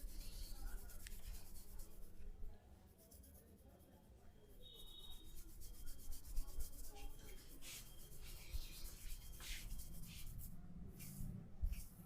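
Faint, irregular rubbing and scraping against skin and hair, a few strokes at a time, easing off for a couple of seconds in the middle.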